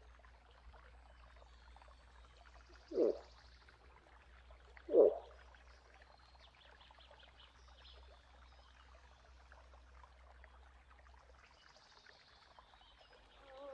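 Moose giving two short calls about two seconds apart, the second one louder, over faint steady background noise.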